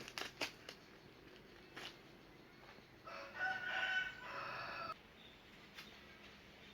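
A rooster crowing once, a single call of about two seconds about three seconds in, preceded by a few sharp clicks.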